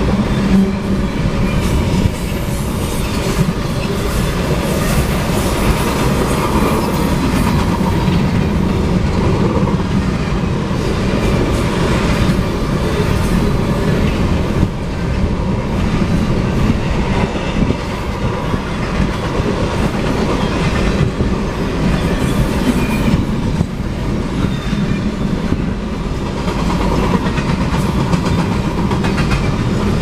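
Double-stack intermodal freight cars rolling past at speed: a steady loud rumble with wheels clicking over the rail joints.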